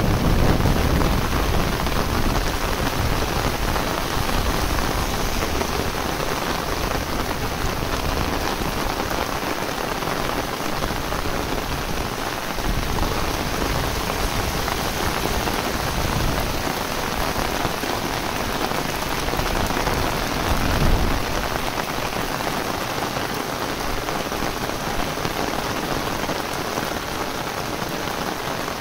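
Heavy rain falling steadily, an even hiss with no let-up, with a brief low rumble swelling about twenty seconds in.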